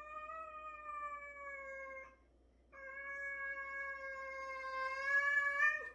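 Domestic cat yowling in two long, drawn-out cries with a short pause between; the second rises in pitch and grows louder toward the end. It is a warning yowl from a cat squaring off with another cat.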